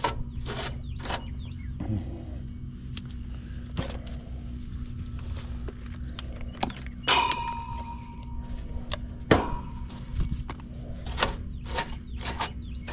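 Clicks and knocks of a clamp meter and its test leads being handled at an outdoor condenser unit's sheet-metal cabinet, with one metallic clang about seven seconds in that rings on for a couple of seconds. A steady low hum runs underneath.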